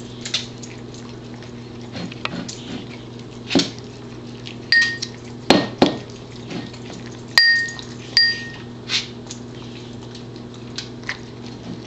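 A Pembroke Welsh Corgi licking out its empty ceramic dog bowl on a tile floor. Scattered knocks and clicks as its muzzle pushes the bowl, and the bowl gives four short clinking rings.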